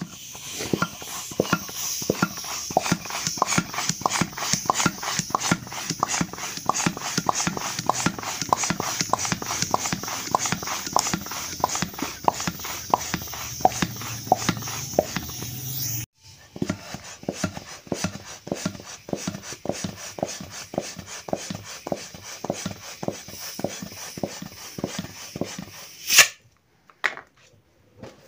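Small plastic toy hand pump being worked fast to inflate a latex balloon: a quick, even run of short squeaky, hissing plunger strokes, about three a second. A single sharp, loud snap comes near the end.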